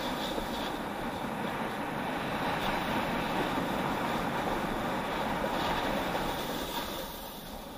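Steady hiss and scrape of edges sliding over packed snow on a downhill run, mixed with wind rushing over the camera microphone. It eases off somewhat near the end.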